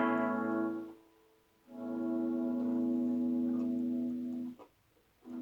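Gretsch Streamliner Junior electric guitar with a chord left ringing, silenced and brought back twice as a pickup volume knob is rolled off and on: with the selector in the middle position, turning either pickup's volume down kills the whole guitar.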